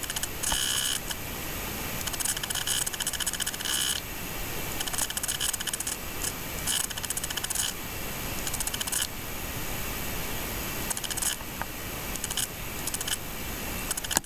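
Film projector running, a dense rapid mechanical clatter over a steady hiss as the home-movie reel plays out to a blank screen.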